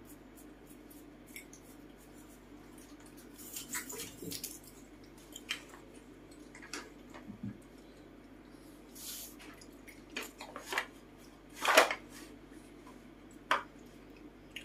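Sparse light clicks and knocks of small wooden letter tiles being handled and knocked together, the loudest near the end, over a faint steady hum.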